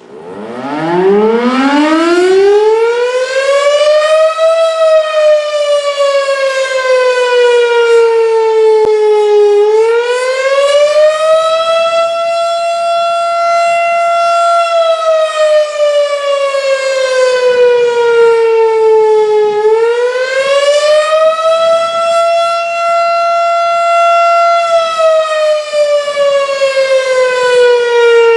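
Federal Signal STH-10A rotating outdoor warning siren starting up from silence and winding up in pitch for about four seconds. It then falls and rises again twice, holding its top pitch a few seconds each time, as it sounds its attack signal.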